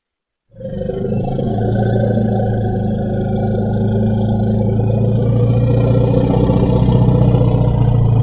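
Woolly mammoth sound effect: after a moment of silence, one long, low, steady call starts about half a second in and holds without a break.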